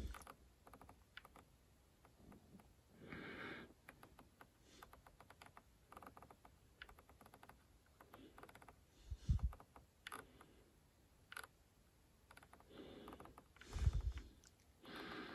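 Spektrum NX8 transmitter's scroll wheel clicking in quick runs of ticks as it is rolled through a menu list, with a few low thumps and short soft noises among the clicks.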